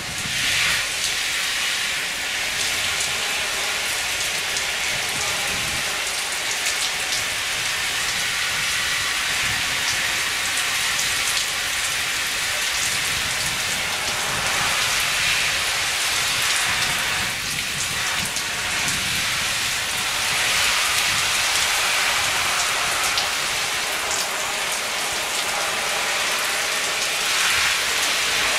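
Water spraying from a sprinkler nozzle in a steady hiss and pattering like rain onto a hooded quilted poncho.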